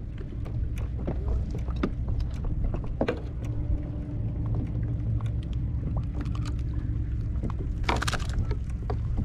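Steady low rumble of open water around a fishing kayak at sea, with many small clicks and knocks. There is a short hiss about eight seconds in.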